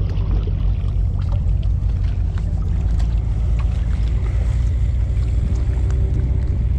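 Steady low rumble and hum of a large ship's engines running, with a few faint ticks over it.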